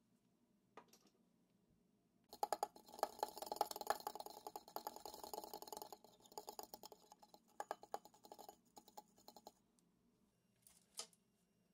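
Metal fork whisking an oil-and-spice marinade in a small glass bowl: rapid clinking and scraping of the tines against the glass for a few seconds, then slower, broken strokes. A single click comes near the end.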